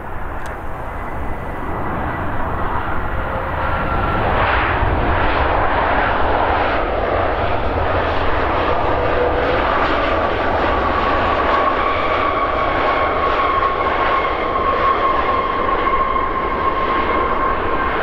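The CFM LEAP-1B turbofans of a Boeing 737 MAX 8 running loud as the airliner rolls down the runway after touchdown. The noise builds over the first few seconds and then holds steady, with a whine running through it.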